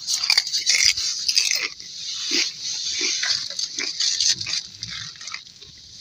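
Close crunching and chewing of a crisp tortilla chip (Doritos Cool Ranch topped with cheese and fried pepperoni), a quick irregular run of crackly bites.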